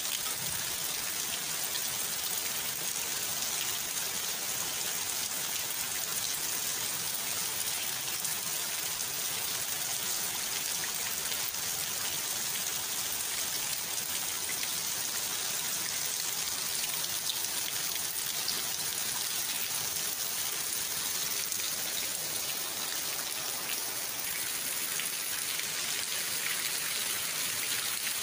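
Steady rain falling on a puddled yard and wet plant leaves: an even hiss with many small drop taps.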